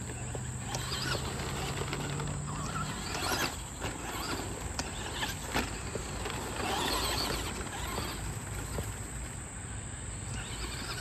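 Traxxas Slash 2WD RC truck driving on a dirt track, its tyres scrabbling through loose dirt in several rasping surges as it slides around the corners.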